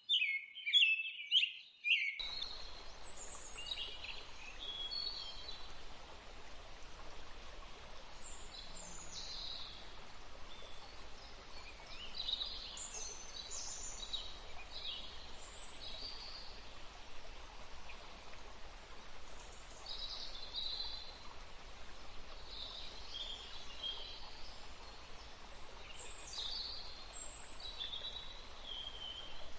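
Songbirds chirping loudly for about two seconds. Then an abrupt switch to a different recording: many short, high bird chirps, some near and some fainter, over a steady background hiss.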